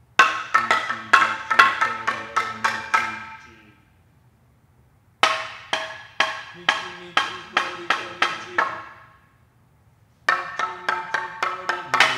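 Long hand-held wooden planks struck with mallets in quick runs of ringing, pitched knocks, several a second. The runs come in three phrases, with pauses of about a second and a half between them.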